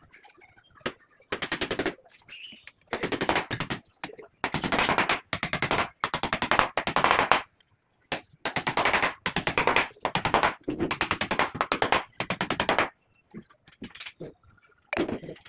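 Electric hammer drill boring through the plywood door frame into the wall in repeated bursts of half a second to a second and a half, each a fast rattle of blows, with short pauses between.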